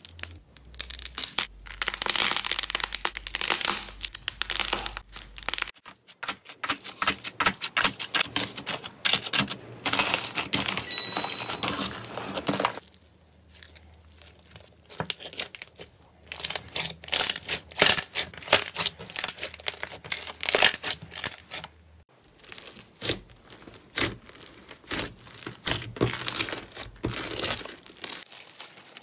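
Hands squeezing and stretching slime: dense sticky crackles, pops and clicks. The sound changes abruptly three times as one clip gives way to the next, and near the end foam-bead slime (floam) is being pulled.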